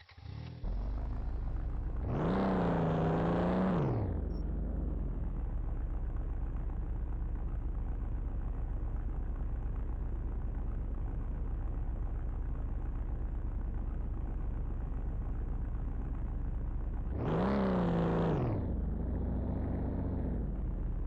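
A car engine starts and then idles with a steady low rumble. It is revved up and let back down twice, once about two seconds in and again near the end.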